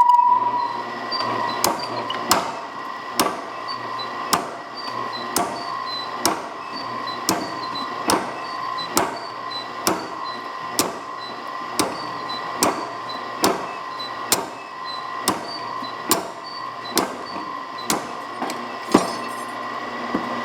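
Power hammer delivering single blows onto a hand-held triangular cutter, cutting through 1.25-inch round steel bar that is being rolled between blows. The sharp strikes come about once a second, over a steady hum.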